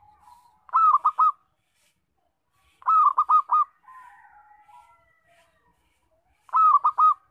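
Zebra dove (perkutut) cooing its staccato song. Three short phrases come about two to three seconds apart, each a quick run of three or four rapid notes.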